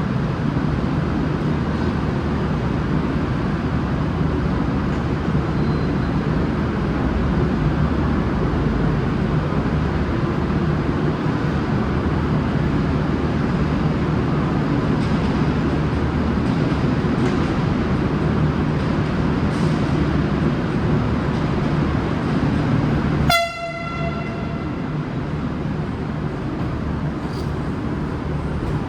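V/Line VLocity diesel multiple unit running steadily as it departs, then one short horn blast about a second long, a single steady note, near the end.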